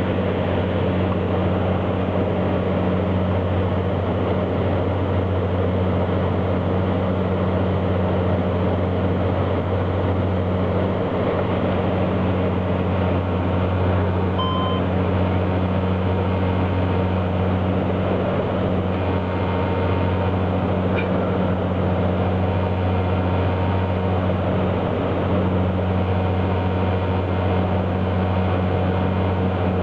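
Saab 340's twin General Electric CT7 turboprop engines and propellers heard in the cockpit on final approach: a steady deep drone with a second, higher hum above it. A short beep sounds about halfway through.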